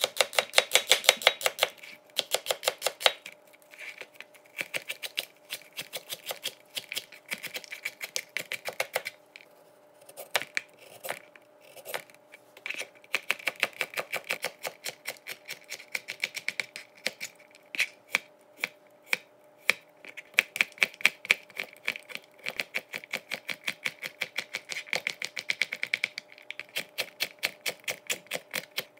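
Chef's knife chopping onion, carrot and red bell pepper on a cutting board: fast runs of sharp knocks, several a second, broken by short pauses.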